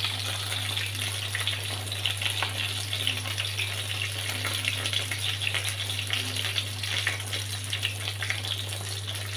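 Fish fillets frying in hot oil in a pan: a steady crackling sizzle over a low, even hum.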